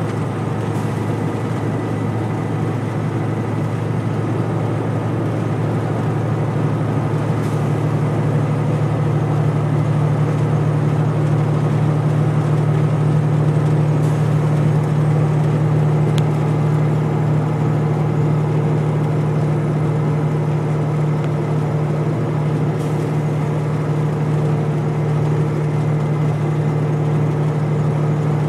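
Steady road and engine noise of a car cruising through a highway tunnel, heard from inside the cabin: a low drone that grows a little louder several seconds in.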